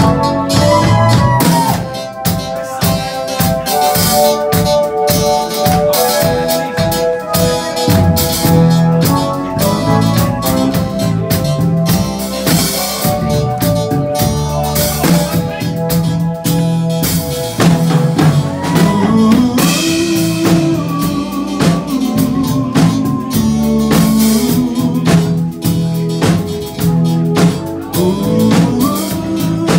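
Live band playing: drum kit with snare and bass drum, keyboards holding chords, and a low bass line, with no singing.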